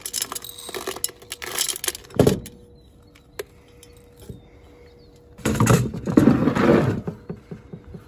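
Shelled corn kernels rattling as they are poured between a grain moisture tester's cup and a metal can, in uneven bursts, with a knock about two seconds in and the longest, loudest pour about five and a half seconds in.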